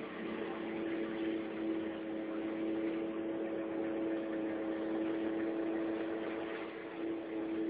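A boat's engine running at a steady, unchanging drone, over a constant hiss.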